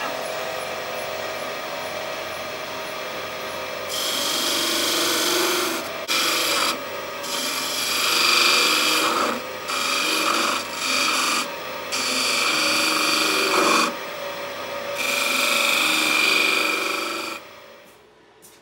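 Wood lathe running with a steady hum, then from about four seconds in a skew chisel cutting beads into the spinning wooden handle blank in a series of short scraping passes with brief pauses; the cutting stops near the end.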